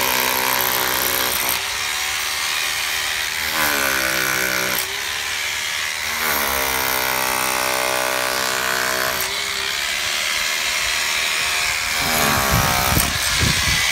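A power tool's motor running in spells, its whine rising and falling in pitch as it speeds up and slows down, with a few low knocks near the end.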